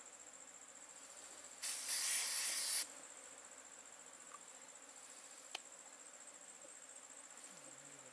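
Insects chirring in the forest as a steady high-pitched drone. About two seconds in, a loud hiss lasts about a second, and a single sharp click comes later.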